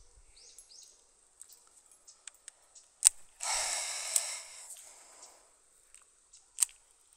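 A fishing cast: a sharp click, then about a second and a half of hissing as line runs off the reel, with another click partway through and a last click near the end. Small birds chirp briefly at the start.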